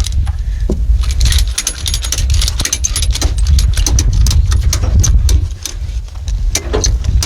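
A run of sharp metallic clicks and clinks over a steady low rumble.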